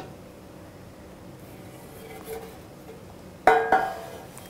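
A metal loaf tin clanking once with a short ring, about three and a half seconds in, as it comes off a cake just turned out onto a plate; before that, only quiet room noise.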